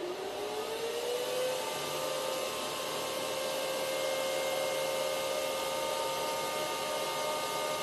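The cooling fans of an Antminer L3+ ASIC miner, fitted with replacement lower-noise fans, whirring steadily. The whine rises in pitch over about the first second and a half as the fans speed up, then holds steady.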